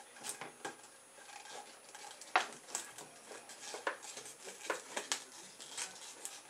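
Hands working at the neck of a plastic pop bottle: a string of irregular sharp clicks and scrapes of plastic, the loudest about two and a half seconds in.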